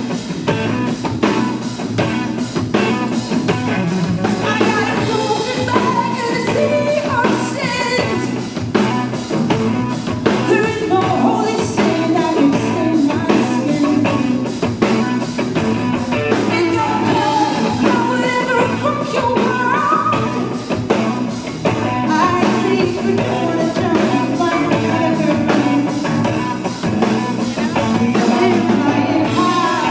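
A rock band playing: drum kit, electric guitar and a singing voice.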